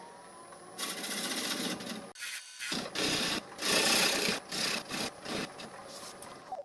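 Bowl gouge making roughing cuts on a spinning fruitwood bowl on a wood lathe: a run of rasping cuts, each a second or less, starting about a second in with a short pause after the second cut. A faint, steady high whine from the lathe runs underneath and cuts off near the end.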